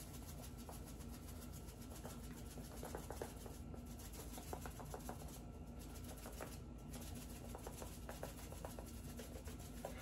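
Lemon pepper being shaken from a plastic spice shaker onto fish fillets: faint, scattered soft taps and rattles of the shaker and falling seasoning, over a steady low room hum.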